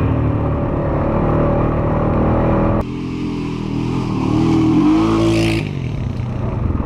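ATV engine running under way on a trail, its pitch rising as it speeds up about halfway through, then holding steady.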